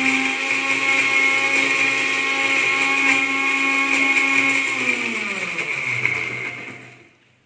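Electric mixer grinder (mixie) grinding chopped tomatoes into a paste: a loud, steady motor hum that winds down in pitch about five seconds in as it is switched off, stopping near the end.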